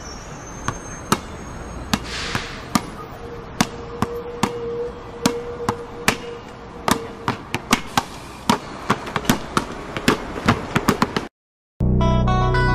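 Basketball dribbled on a hardwood gym floor: sharp separate bounces, about two to three a second, coming faster in the second half. Near the end the sound cuts off, and after a moment of silence background music with a plucked-string melody starts.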